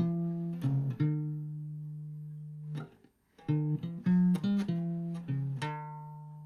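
A swing-rhythm phrase of plucked string notes, uneven long and short beats, ending on a long held note. After a short pause the same phrase is played again and again ends on a held note.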